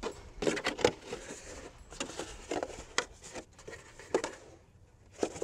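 Potting soil being scooped with a trowel from a plastic bucket into a plastic milk jug: a run of short scrapes, soil pattering and knocks and crinkles of the thin plastic jug, easing off near the end.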